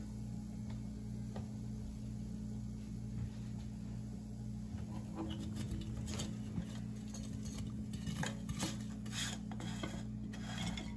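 Crispy air-fried bitter gourd chips clattering and scraping as they are tipped out of a nonstick air fryer basket onto a plate and pushed along with a silicone spoon. The clicks and scrapes start about halfway in and come thicker near the end, over a steady low hum.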